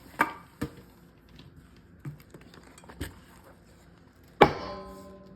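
Handling noise from a leather championship belt with metal plates as it is turned over: a few light knocks and taps, then, about four seconds in, a sharper knock that rings briefly.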